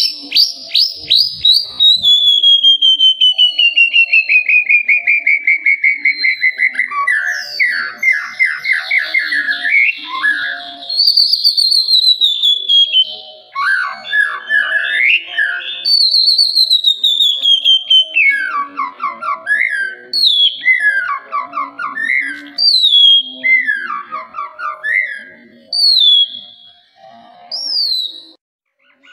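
White-rumped shama (murai batu) singing. It opens with a long trill of rapid notes falling slowly in pitch, then moves through varied whistled phrases. Near the end comes a run of short phrases, each starting with a high falling whistle.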